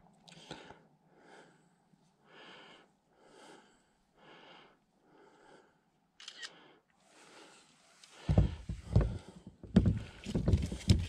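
Smartphone camera shutter sounding about once a second, six or seven times in a row. From about eight seconds in, loud knocking and rubbing as the landing net is handled on the kayak.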